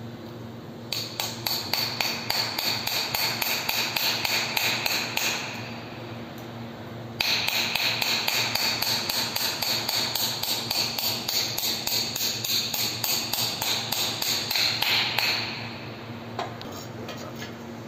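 Small hammer striking steel anchor fastener bolts to drive them into drilled holes in a concrete ceiling: a quick run of ringing metal-on-metal blows for about four seconds, a short pause, then a second steady run of blows for about eight seconds.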